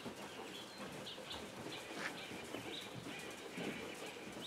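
Birds chirping faintly, with short scattered calls.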